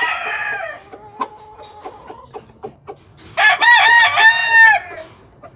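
Aseel rooster crowing: a loud crow of several rising-and-falling syllables about three and a half seconds in, lasting under a second and a half. Before it, the tail of an earlier call fades out in the first second, followed by soft clucks.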